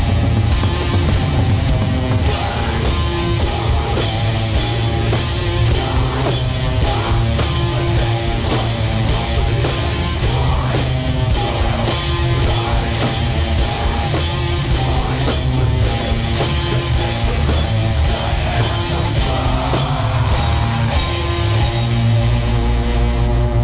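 Heavy, distorted rock music from a guitar, bass and drums band, in mono, with repeated cymbal crashes over thick, low guitar and bass. Near the end the cymbals drop out and the low end swells.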